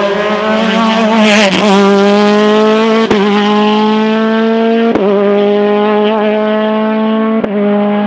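Ligier JS49 sports-prototype race car accelerating hard up a hillclimb, its engine note climbing steadily and breaking sharply four times as it shifts up through the gears.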